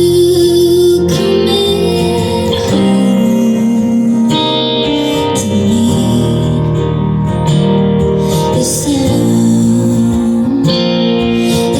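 Live band playing a song, with guitars to the fore and long held notes that bend slightly in pitch.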